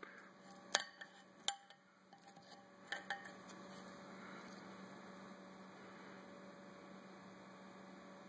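A few light clicks and taps of a small plastic 3D print being handled over the printer's glass bed, then a steady low hum.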